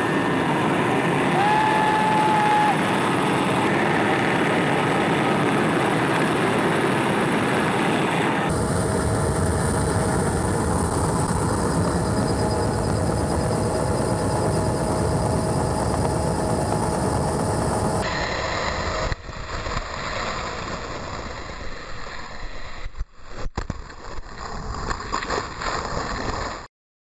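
Helicopter engine and rotor running steadily and loudly, heard from the open cabin door with wind rushing past. A brief high tone sounds a second or two in. Near the end the noise turns quieter and uneven before cutting off suddenly.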